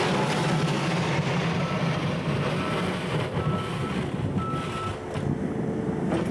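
New Holland C232 compact track loader's diesel engine running steadily, with a high beeping tone sounding about once a second through the middle, typical of a backup alarm while reversing.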